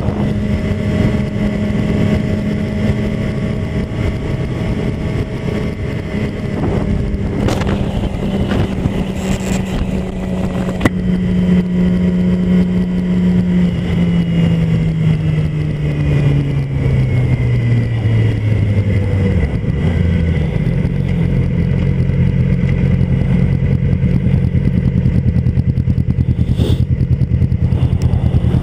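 2007 Yamaha YZF-R6's inline-four engine running steadily at cruising speed with road and wind noise. Just before halfway the engine note drops steadily as the bike slows, and for the last several seconds it runs at a low, even idle.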